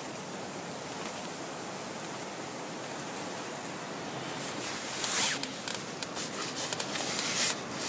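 A zipper pulled in several quick strokes over a steady background hiss, the strokes coming in the second half, loudest a little past the middle and near the end.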